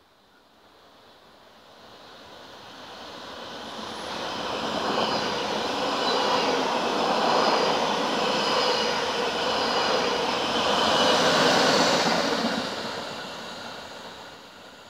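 NS double-deck electric passenger train passing through the station: the rumble and hiss of its wheels on the rails swells as it approaches, is loudest for several seconds as it runs past, then fades as it goes away.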